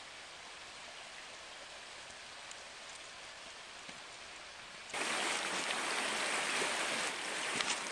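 Faint steady outdoor hiss, then about five seconds in it suddenly gives way to the much louder, steady rush of a shallow creek running over stones.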